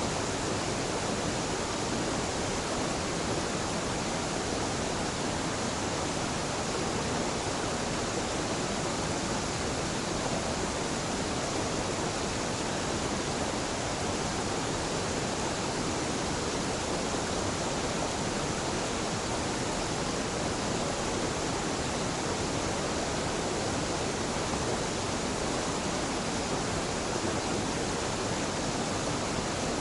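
A small mountain waterfall pouring steadily into a stream, an even rushing of falling water with no change.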